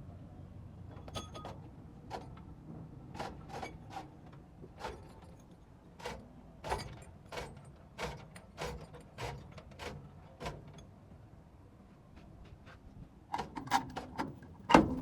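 Irregular metallic clicks and knocks of tools and steel parts being handled during clutch and gearbox work on a truck, a clink every second or so, turning busier and louder near the end.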